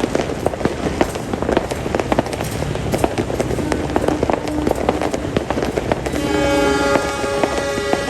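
Diesel-electric locomotive air horns sounding over a constant crackle and popping of fireworks; a faint horn note comes in briefly near the middle, and about six seconds in a loud multi-tone horn chord starts and holds.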